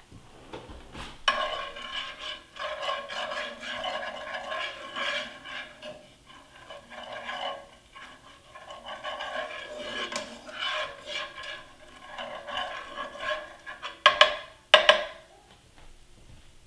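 A spoon stirring and scraping a simmering glaze around a frying pan in repeated strokes, with short pauses, the pan ringing faintly under it. Near the end come two sharp taps of the spoon on the pan.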